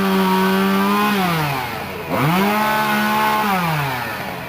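Two-stroke chainsaw engine held at full throttle, dropping toward idle about a second in, revved straight back up just after two seconds, then let down to idle again near the end.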